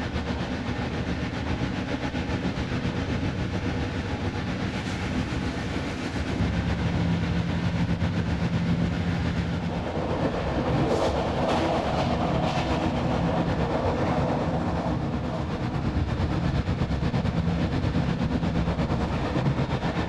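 Interregio passenger coach running along the line, heard from inside: a steady rumble of wheels on rails that grows louder about six seconds in, with a few sharp clacks about halfway through.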